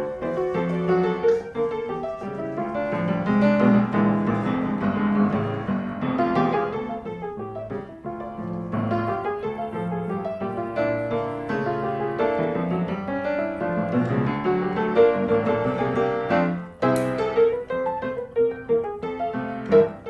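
Background piano music, a steady flow of notes. Near the end it dips briefly with a single short sharp click, then carries on.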